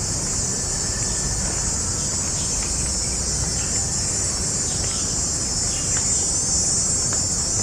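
A steady, high-pitched insect chorus droning without a break, over a low rumble.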